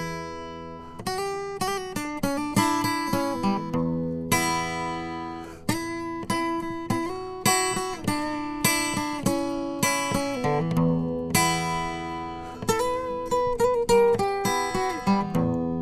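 Music on a solo acoustic guitar: a slow melody of plucked notes and chords, each ringing out and fading.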